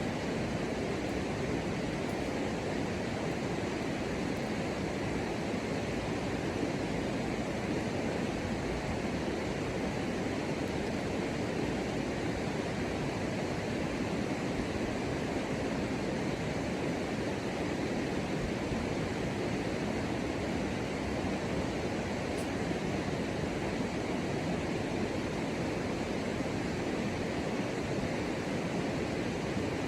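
Steady, unbroken rushing noise of outdoor ambience, even in level throughout, with no calls or distinct events standing out.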